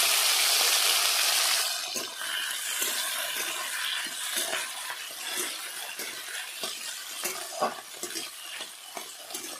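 Chopped tomatoes sizzling loudly in hot oil in a metal kadai, the sizzle dropping off after about two seconds. Then a flat metal spatula stirring and scraping against the pan, with many short clinks over a softer sizzle.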